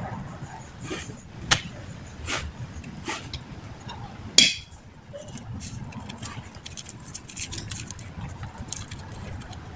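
Hand handling noises from rolling spring rolls on a plastic cutting board: soft taps and rustles of the wrappers and filling, with a sharp ringing clink about four and a half seconds in.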